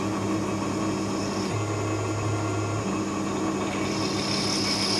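Tormach PCNC 1100 CNC mill cutting a metal bracket with an end mill under flood coolant: a steady machine hum with cutting noise. The hum's pitch shifts for a moment in the middle, and a higher cutting hiss grows louder near the end.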